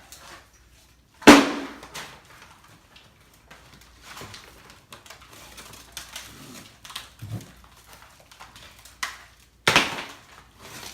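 Knocks and cracks of an interior wall being broken apart and pulled off by hand: a loud bang about a second in and another near the end, with scattered smaller knocks and scrapes between.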